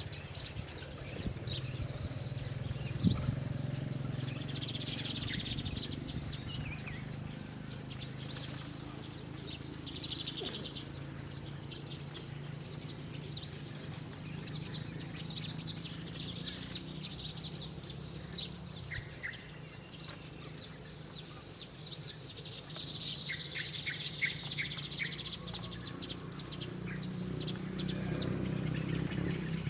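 Small wild birds chirping and tweeting in short, scattered calls, with quick runs of rapidly repeated notes near the middle and about three-quarters of the way through, over a steady low hum.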